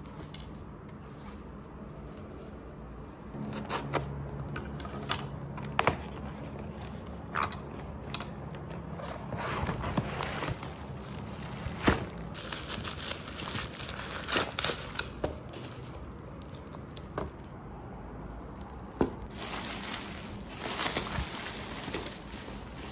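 Plastic packaging crinkling and packing tape tearing as taped parcels are unwrapped, with scattered sharp clicks and scrapes of cardboard.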